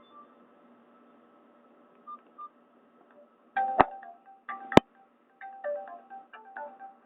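Nokia N81 ringtones played through a Nokia 216 phone's small speaker. One melody fades out, two soft single notes follow in a near-quiet pause, then a new chime-like ringtone of short notes starts about three and a half seconds in. Two sharp clicks near the middle are the loudest sounds.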